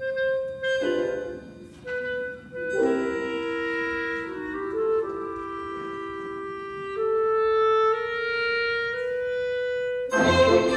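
Orchestral ballet music: woodwinds, clarinet-like, play short phrases and then long held notes over soft accompaniment. Near the end the full orchestra comes in much louder.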